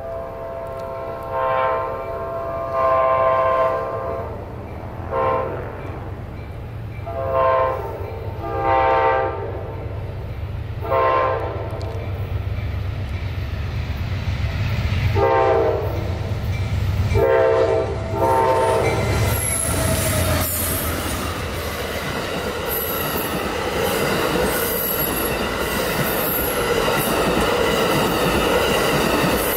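Amtrak Auto Train approaching a grade crossing, its diesel locomotive's chime horn sounding the crossing signal in repeated long and short blasts over a growing engine rumble. The train then rushes past, with its bi-level Superliner cars clattering over the rail joints and the wheels squealing high.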